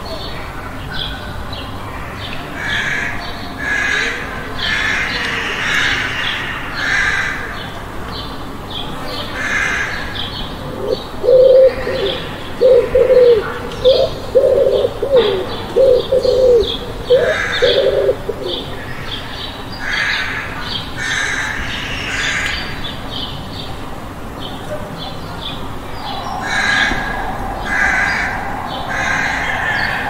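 City park ambience with birds chirping here and there. From about eleven seconds in, a dove gives a run of about eight loud, low coos lasting some seven seconds.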